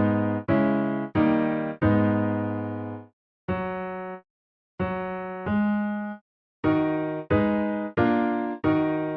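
Electric piano playing about ten chords one after another, each struck and left to fade, some held longer; a group of four opens, then single chords and pairs after short silences, and a last group of four near the end.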